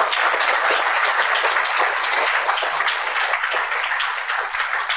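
Audience applauding: dense, steady clapping that thins out a little toward the end.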